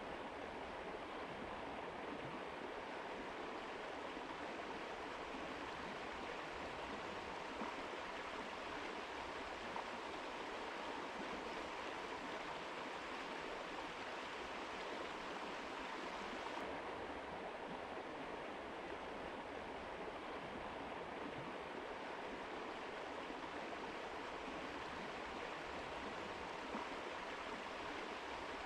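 Mountain river flowing: a steady, even wash of running water, its highest hiss thinning slightly about seventeen seconds in.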